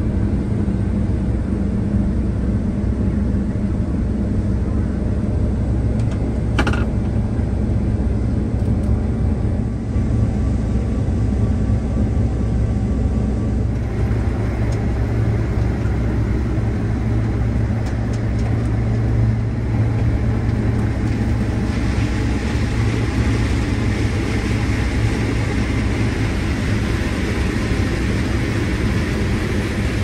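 New Holland combine running steadily while harvesting corn: a constant low engine hum under a continuous mechanical rush, which grows louder and brighter about halfway through.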